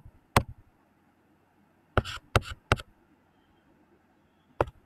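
Sharp plastic taps of a stylus on a pen tablet: a single tap near the start, a quick run of about four taps about two seconds in, and one more near the end.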